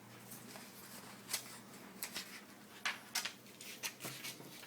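Scissors cutting paper: about half a dozen short, separate snips.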